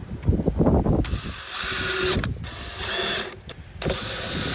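Power drill running in about three short bursts of roughly a second each, each with a faint motor whine.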